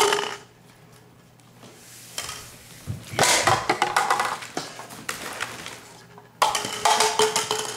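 A ferret scrambling through a flexible foil duct and knocking over cups on a wooden floor: crinkling foil and light clattering, in two loud bursts about three and six seconds in.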